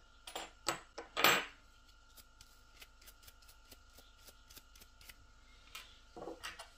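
Small clicks and taps of plastic and metal hair-clipper parts being handled and put down on a table, a few sharp ones in the first second and a half, the loudest a little over a second in, then lighter scattered ticks, over a faint steady tone.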